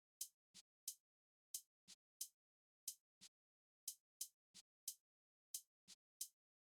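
Quiet background music: a sparse, repeating rhythm of short, hissy percussion hits, three or four in each group, with silence between them.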